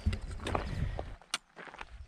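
A hiker's footsteps on a loose, stony mountain path, irregular scuffs and knocks over a low rumble. The sound drops away about a second in, leaving a single sharp click.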